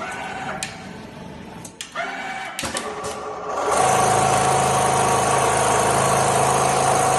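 Automatic template sewing machine at work: a few sharp clicks and shifting whirs, then about three and a half seconds in a louder steady running hum with a constant whine sets in as it sews.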